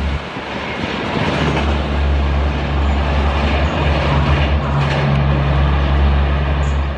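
Diesel-hauled passenger train running along the track: a steady rumble of wheels on rails over a constant low drone.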